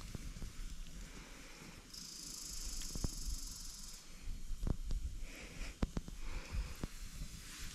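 Wood fire crackling in a metal fire box, with a few sharp pops scattered through. About two seconds in, a steady high hiss runs for two seconds.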